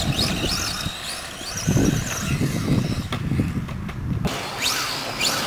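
Radio-controlled off-road race cars' motors whining, rising and falling in pitch again and again as the cars accelerate and brake round the track, over an uneven low rumble.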